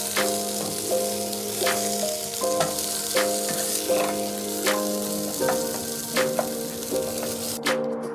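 Food frying and sizzling in a pan, a steady crackling hiss that stops near the end, under background music with a steady beat.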